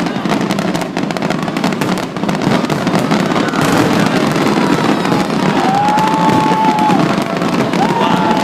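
Aerial fireworks bursting and crackling in a dense, continuous barrage. In the second half, two long whistling tones are heard, one after the other.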